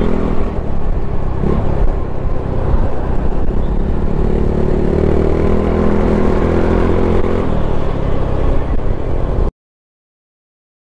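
Small motor scooter engine running at road speed, its note rising slightly in the middle, with heavy wind rumble on a helmet-mounted microphone. The sound cuts off to silence about nine and a half seconds in.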